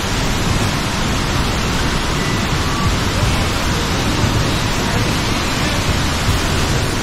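Steady rushing roar of a large waterfall: falling water making a loud, even noise.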